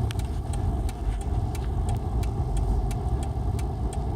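Car cabin noise while driving: a steady low rumble from the engine and tyres, with light sharp ticks scattered through it at about three or four a second.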